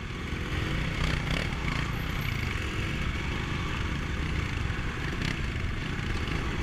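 Dirt bike engines running as the riders pull away at low speed, heard from the rider's own bike, getting louder about a second in.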